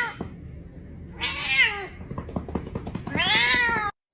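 A cat yowling in long, drawn-out calls. The end of one call is heard, then two more, each rising and then falling in pitch, with about a second and a half between them. The sound cuts off suddenly near the end.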